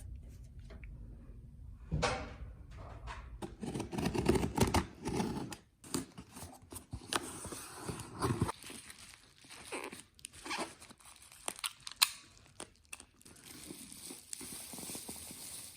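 Paper and desk clutter being handled and cleared out: irregular rustling, crinkling and tearing, with scattered small knocks and one sharp click about twelve seconds in.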